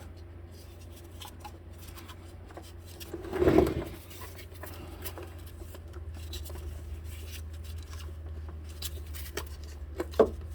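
Light clicks and scrapes of hand tools and engine parts being handled, with a louder short clatter about three and a half seconds in and a sharp click near the end, over a steady low hum.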